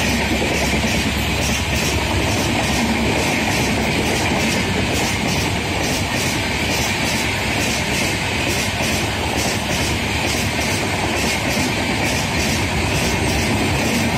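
Passenger coaches of an express train passing close at speed: a loud, steady rush of wheels on rail with a regular clickety-clack of the wheels running over rail joints.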